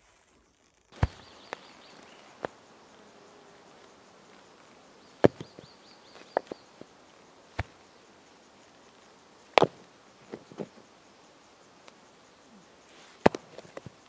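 Rocks set down and knocked against one another, sharp separate clacks every second or two, some in quick pairs.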